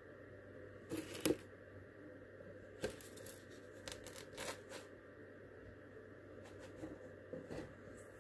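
Cardstock rustling and crackling as a folded paper card is handled and opened out, in short scattered bursts, the loudest about a second in.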